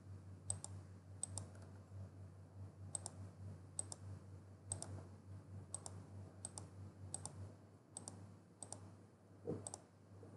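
Computer mouse clicked repeatedly, about once a second, many clicks heard as a quick double tick of press and release, while points are placed along a polygon outline. A faint low steady hum runs underneath.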